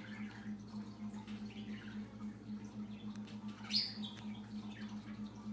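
Faint high, bird-like chirps, with one sharper rising chirp near the middle, over a steady pulsing low hum.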